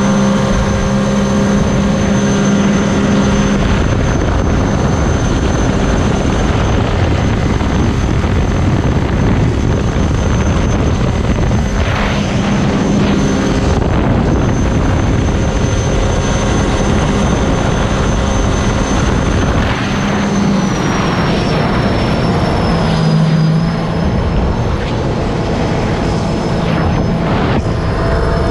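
Jet ski engine running hard at speed, mixed with heavy wind and water rush. A high steady whine rides over it and drops lower about two-thirds of the way through as the pace eases.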